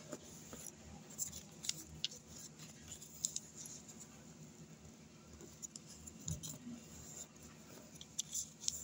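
Sheet of paper crinkling and crackling as it is folded and creased by hand, in scattered short crackles and ticks, with a cluster about a second in and another near the end.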